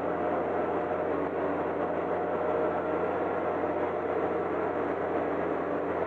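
Caterpillar D6N crawler bulldozer's diesel engine running steadily as the dozer crawls through deep flowing water, with the rush of water around its tracks.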